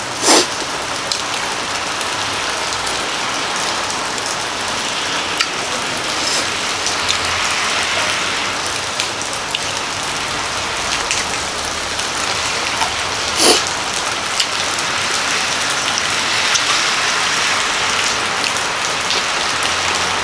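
Steady rain falling, heard from under a roof, a constant even hiss. It is broken twice by a brief sharp sound, once just after the start and once about two-thirds of the way through.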